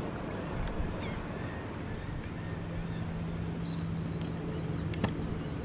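Beach ambience: a steady low hum and background hiss, with a few faint, high, wavering bird chirps and one sharp click about five seconds in.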